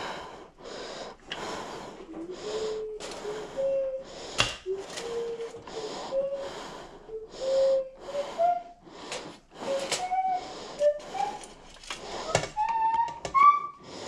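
Rapid, rhythmic panting-like breathing, about two breaths a second, with thin wheezy squeaks that rise higher near the end.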